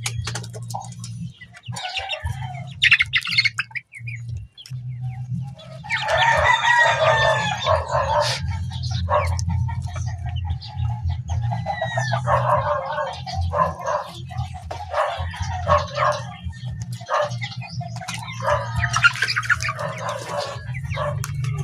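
A flock of young Rhode Island Red chickens, about five weeks old, calling over and over in short clucks and cheeps, with the busiest, loudest calling a few seconds in. A steady low hum runs underneath.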